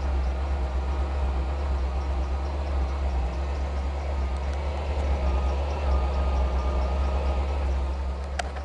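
1979 Ford Mustang's 302 V8 (5.0 L) with a two-barrel carburettor idling steadily, heard close to the exhaust outlet as a deep, even hum with no revving.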